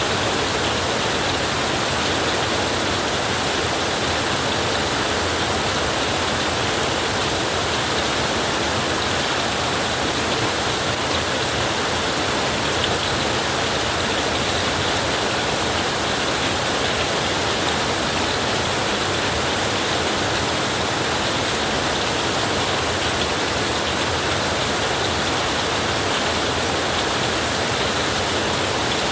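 Heavy rain drumming on a tin roof, a steady, dense hiss with no single drops or thunder standing out.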